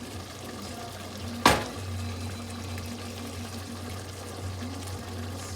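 Chicken curry sizzling and bubbling in a pot over a medium-high flame as it cooks down, with a low steady hum underneath. A single sharp knock about one and a half seconds in is the loudest sound.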